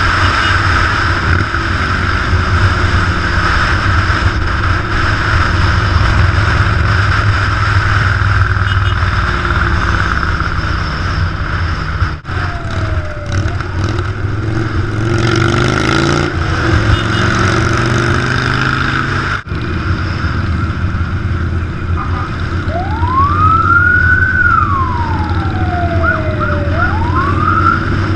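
Big motorcycle engines running while riding on the road. Near the end a siren wails up and down.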